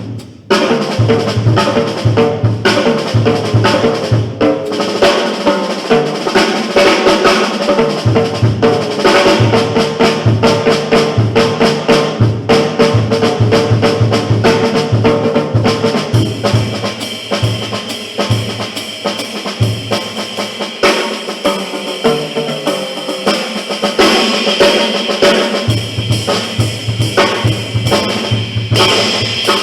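Jazz quartet playing live, with the drum kit prominent: busy snare, cymbal and bass-drum strokes over repeated low bass notes.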